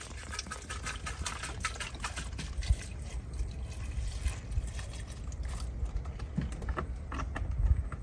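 Water pouring from a plastic bottle into a stainless steel pot, splashing and trickling.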